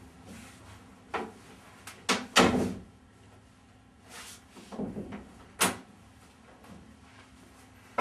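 A door being handled and moved: a run of sharp knocks and clunks, the loudest about two and a half seconds in and another sharp one just before six seconds.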